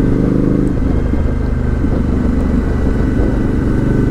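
Suzuki V-Strom 1050XT's V-twin engine running steadily while the motorcycle cruises, with a constant rush of wind and road noise over it.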